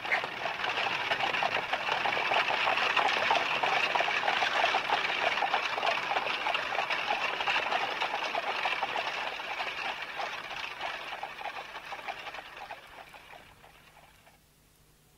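Steady sound of running water, a dense patter of small splashes, fading out over the last few seconds.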